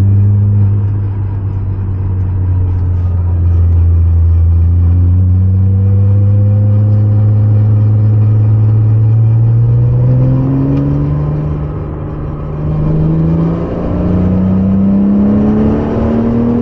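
Porsche 987.2 Cayman S 3.4-litre flat-six heard from inside the cabin, pulling slowly up through the revs at moderate engine speed. The engine note eases off and dips about ten seconds in, then climbs again.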